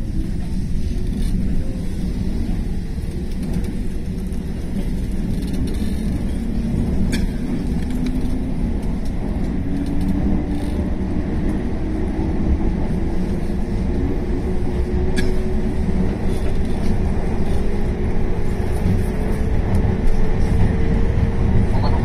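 JR West 221 series electric train heard from inside the carriage, pulling away from a station: a heavy rumble of wheels on rail under a motor-and-gear whine that climbs steadily in pitch as the train gathers speed.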